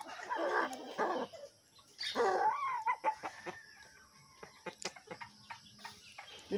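Chickens and a rooster calling: two pitched calls in the first three seconds, the second bending up and down in pitch, followed by scattered light clicks.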